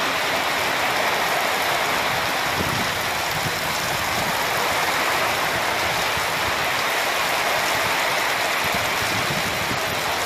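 Heavy hurricane rain pouring steadily onto a flooded street, an even hiss that does not let up.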